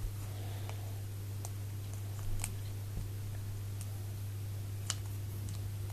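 A few faint, scattered clicks and taps of small plastic toy pieces being handled and fitted together, over a steady low hum.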